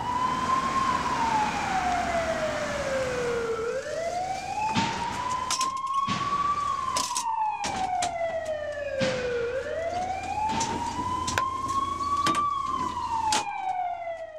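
Ambulance siren wailing in slow cycles, each quickly rising then slowly falling, about three times over, with several sharp knocks and clacks over it. The siren cuts off abruptly at the end.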